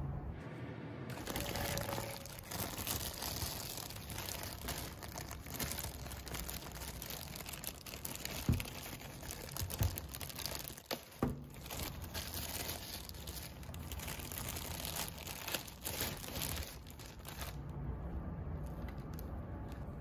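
Thin plastic bag crinkling and rustling as it is worked off a cylindrical HEPA filter, with a few sharper knocks midway. The crinkling dies down near the end.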